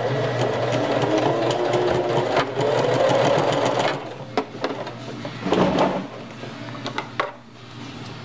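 Singer Heavy Duty sewing machine running, stitching the elastic down onto the diaper fabric; its pitch rises as it speeds up, then it stops about four seconds in. A short burst and a few light clicks follow.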